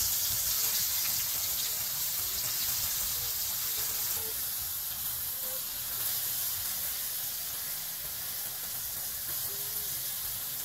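Egg-and-flour-battered eggplant deep-frying in hot oil in a metal pan: a steady sizzle that eases slightly after about four seconds.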